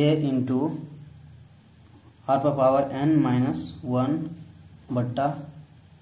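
A cricket trilling steadily at a high pitch in the background, with a man's voice speaking in short stretches over it.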